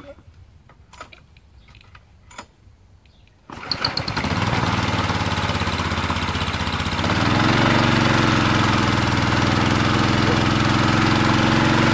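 Briggs and Stratton Quantum 6 hp single-cylinder engine on a pressure washer starting on the recoil pull about three and a half seconds in, after a few faint knocks, then running. About seven seconds in its speed steps up and it holds a steady run, with no surging, on its freshly cleaned carburetor.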